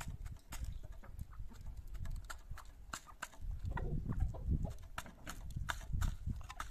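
Chickens pecking corn from hanging plastic-bottle feeders: irregular quick clicks and taps of beaks on the plastic and grain, over a low rumble.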